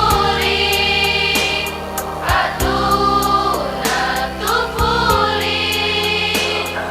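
Girls' choir singing long held notes over a backing track, with a steady, light ticking beat.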